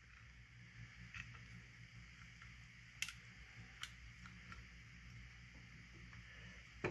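Faint clicks of small steel bolts and washers being handled and threaded into a chainsaw housing, about four of them, the sharpest about three seconds in and another near the end, over a steady low hum.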